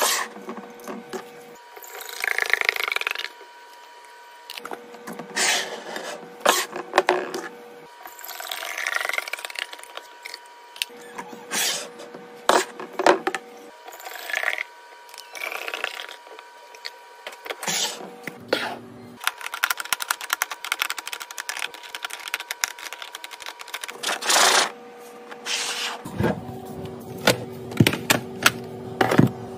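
Groceries and containers being handled and stocked: many sharp clicks and taps of plastic lids and containers, with rustles of packaging and a couple of rising hissing pours.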